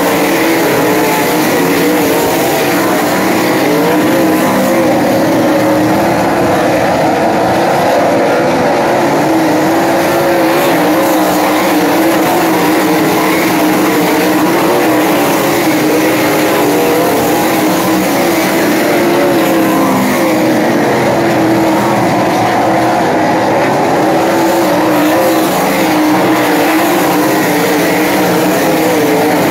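A field of 700-horsepower winged dirt-track sprint cars racing, their V8 engines running together as one steady, loud, overlapping engine noise whose pitches waver up and down as the cars go around the track.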